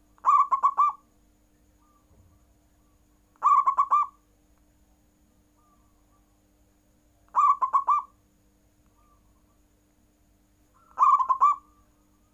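Zebra dove (perkutut) cooing: four short phrases, each a quick run of rolling coo notes lasting under a second, spaced about three and a half seconds apart.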